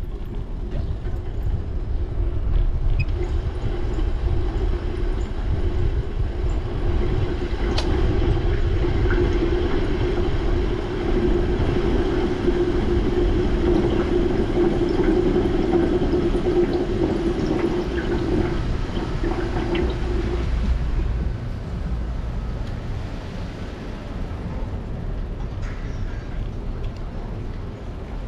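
Bicycle rolling over pavement: a steady tyre and road rumble carrying a hum that cuts off about twenty seconds in, after which the rumble is a little quieter.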